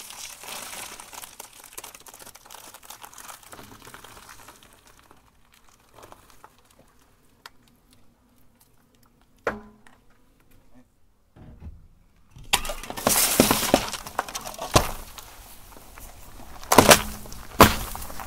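A car tyre rolling over and crushing Oreo cookies and their plastic wrapper on asphalt, a crackly crunching over the first few seconds. After a quieter stretch with a single sharp crack, there is a series of loud cracks and pops as packaged items are crushed and a drink carton bursts under the tyre.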